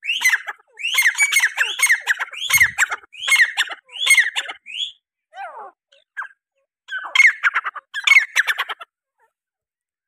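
Grey francolin calling: rapid, harsh notes repeated over and over in two runs, with a short break a little after halfway.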